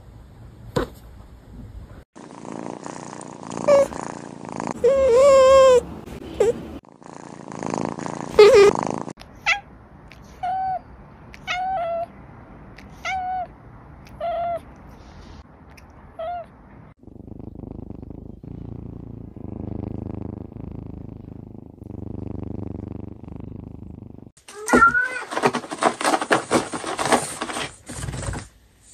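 Domestic cats in a string of short clips: a few meows, then a run of about seven short, clipped meows roughly one a second, then steady low purring, and near the end a cat scratching a cardboard scratcher with a meow over it.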